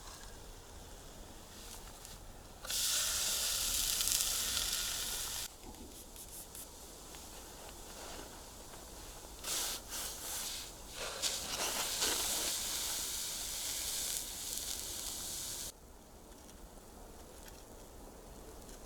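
Loud sizzling hiss from hot cooking over a Swedish torch log fire, in two spells, about three seconds and then about six seconds long, each starting and stopping abruptly. A few crackles come at the start of the second spell.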